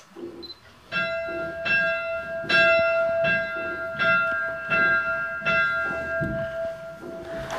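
Church bells rung full-circle by a band of ringers, striking one after another about every three quarters of a second, each stroke ringing on over a steady hum.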